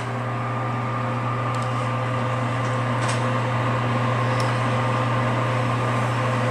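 Steady low hum with thin whining tones, like a kitchen appliance or fan motor, growing slightly louder, with a few faint clicks.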